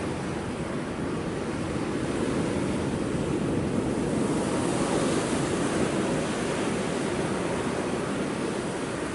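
Big ocean waves breaking on rocks: a continuous rush of surf that swells to a peak about halfway through, then eases off.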